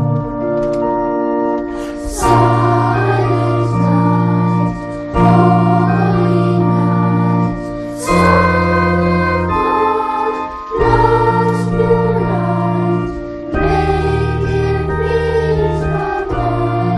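Children's choir singing with organ accompaniment: held chords that change every two to three seconds under the sung melody.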